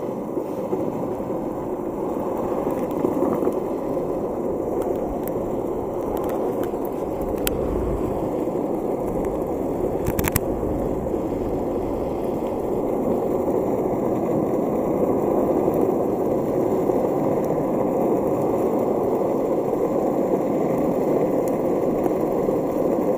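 Land Yacht cruiser longboard rolling on rough asphalt: a steady wheel rumble that grows a little louder as the board gathers speed, with a few sharp clicks, the clearest about ten seconds in.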